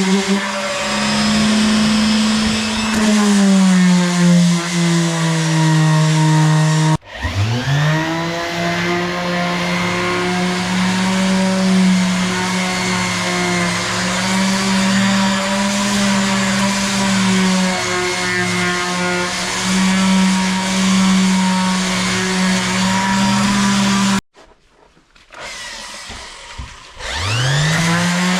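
Handheld electric power tool motor running, its pitch sagging and recovering as it is worked under load. It cuts out about a quarter of the way in and immediately winds back up, then stops near the end and spins up again.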